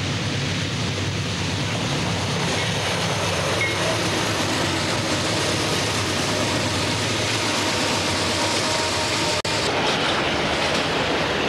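Three CSX diesel-electric locomotives working hard upgrade, their engines running loud as they pass close by. After about seven seconds the engine sound gives way to the rolling noise of autorack freight cars going by on the rails.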